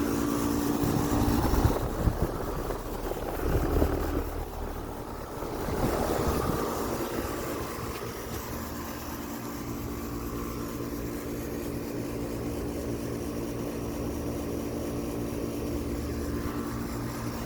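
2019 Carrier Comfort central air conditioner's outdoor condenser unit running steadily, its compressor and fan giving a constant hum with a few fixed tones. Wind rumbles on the microphone in gusts during the first several seconds.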